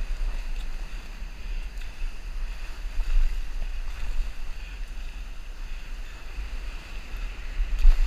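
Whitewater foam rushing past a stand-up paddleboard riding a broken wave, with wind buffeting the board-mounted camera's microphone in a steady low rumble.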